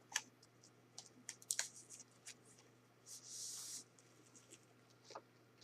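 Blu-ray case and its plastic packaging being handled: scattered light clicks and taps, with a brief rustle about three seconds in.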